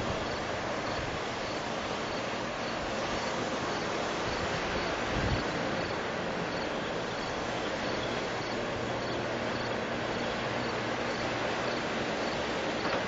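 Marion 7800 walking dragline's machinery running with a steady hissing drone over a faint low hum, and a single low thump about five seconds in.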